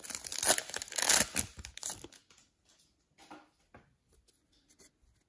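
Foil trading-card pack wrapper crinkling and tearing as it is pulled off the cards, for about two seconds; after that only a few faint, brief rustles of the cards being handled.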